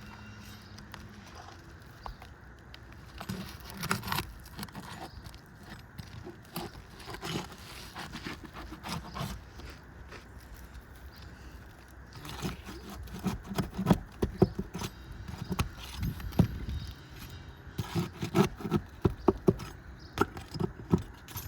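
Damaged roof shingle being pried up and removed: irregular scraping, clicks and knocks, coming thick and fast in two busy spells in the second half.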